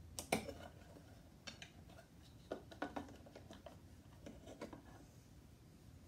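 Wires and plastic wire nuts being pushed into a metal electrical box and a smart switch fitted against it: scattered light clicks and taps, the sharpest just after the start.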